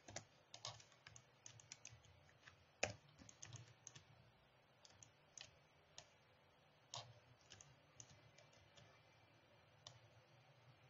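Faint, scattered clicks of a computer mouse and keyboard, single and in quick little runs, the sharpest about three seconds in, over a faint low hum.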